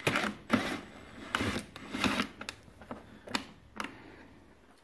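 A cordless drill-driver run in short bursts, backing a T25 Torx screw out of a motorcycle fairing speaker mount. This is followed by a few light clicks.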